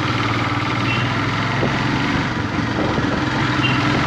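Royal Enfield Himalayan's single-cylinder engine running steadily under way, over a steady rushing noise.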